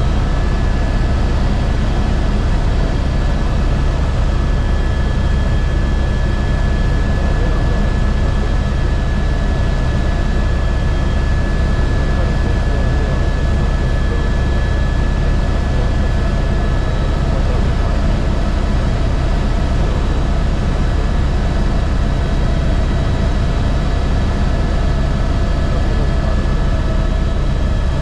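Airbus H125 helicopter's single Arriel turboshaft engine and rotor running steadily in flight: a dense low rumble with faint steady high whine tones above it.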